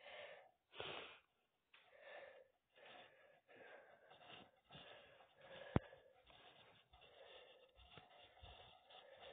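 Near silence: faint puffs of noise coming and going about once a second, with one sharp click about six seconds in.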